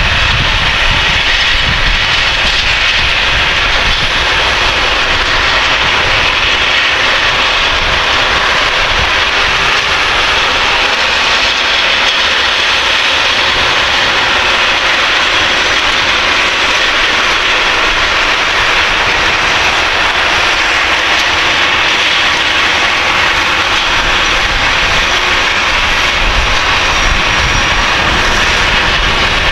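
Case IH Quadtrac 620 tracked tractor running loud and steady, pulling a cultivator and roller. Its deep rumble weakens through the middle and comes back near the end.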